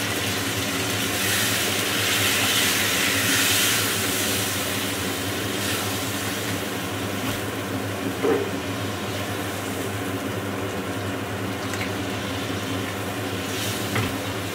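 Water poured into a pan of hot fried masala and paneer, hissing and sizzling most strongly for a few seconds after it goes in and then settling to a simmer, over a steady mechanical hum. Two short knocks, about eight seconds in and near the end.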